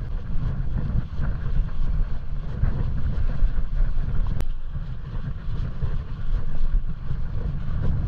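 Wind buffeting the microphone of an action camera on a mountain bike riding along a snow-covered trail, a steady low rumble with the tyres rolling over the snowy ground. There is one sharp click about four and a half seconds in.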